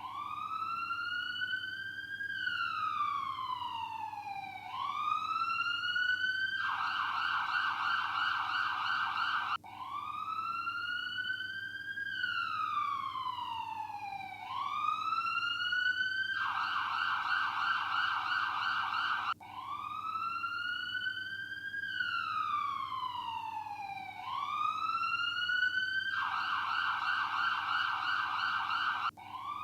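Electronic ambulance siren running through its cycle: a slow wail that rises and falls, then a few seconds of fast warble that cuts off abruptly. The cycle repeats about every ten seconds, three times over.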